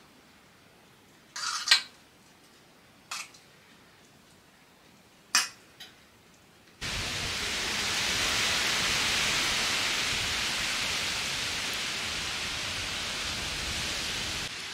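A few brief rustles and light knocks as cabbage leaves are rolled around a filling by hand. About seven seconds in, these give way suddenly to a steady, even outdoor rushing noise, louder than anything before it.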